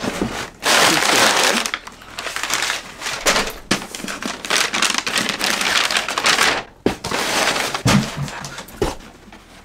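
Tissue paper crinkling and rustling loudly as hands dig through a packed shipping box. A few soft thumps near the end as a cloth dust bag is lifted out.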